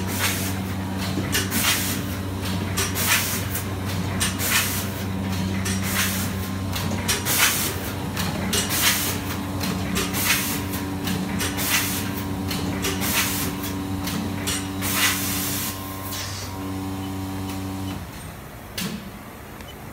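Vertical form-fill-seal packing machine running: a steady motor hum with short hissing bursts in an even rhythm, about one every three-quarters of a second. The hisses stop about 16 seconds in and the hum cuts out about two seconds later, followed by a single knock.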